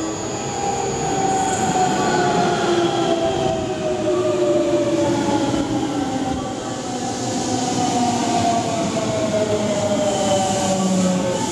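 Electric commuter train pulling into a station platform and braking, its running noise carrying a whine that slowly falls in pitch as it slows.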